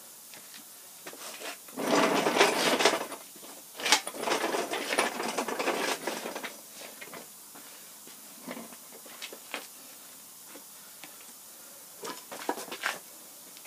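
Steel engine hoist rolled on its casters across concrete, rattling and clanking, in two spells in the first half. A few light metal clicks near the end.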